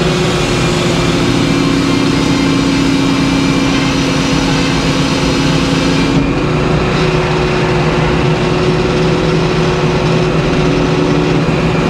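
Large circular sawmill blade running and ripping a board off a white pine log, a steady loud machine noise. Its tone changes about six seconds in, when the highest part of the hiss drops away.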